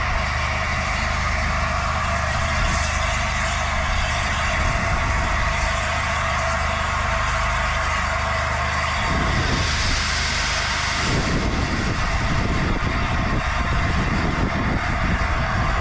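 LNER A4 Pacific steam locomotive standing with a steady hiss of steam over a low hum. About nine seconds in the hiss briefly turns brighter and higher, and the hum drops away soon after.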